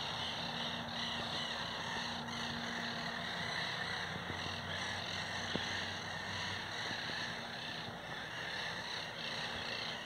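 Steady outdoor chorus of birds chattering in the trees, with a faint low hum during the first few seconds.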